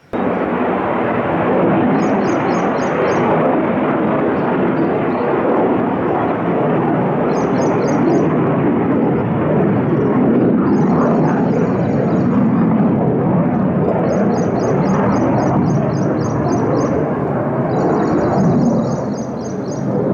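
Military fighter jet engine noise: a loud, steady roar that neither rises nor falls, starting abruptly. Short bursts of high, rapidly pulsed chirping sound over it several times.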